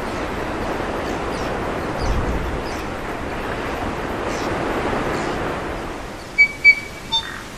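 Ocean surf washing steadily on the shore. About six seconds in it cuts to a songbird's few loud, clear, pure whistled notes in a quiet forest.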